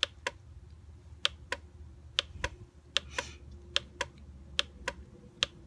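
About a dozen sharp clicks, unevenly spaced and often in pairs, as the down arrow is clicked again and again on a laptop to step a value down.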